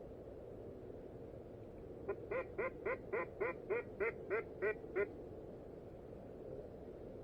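A duck quacking in a quick, even run of about eleven quacks, roughly four a second, lasting about three seconds.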